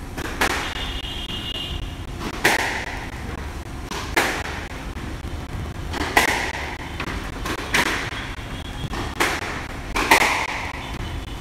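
Squash rally: the ball cracks sharply off racquets and the court walls about every second or two, each hit ringing briefly in the enclosed court.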